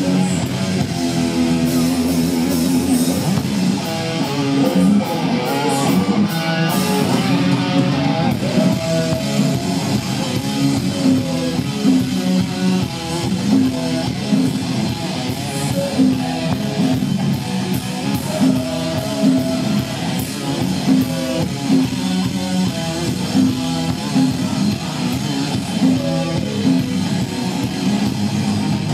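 Heavy metal band playing live: distorted electric guitars over bass and drums, loud and continuous through the concert PA.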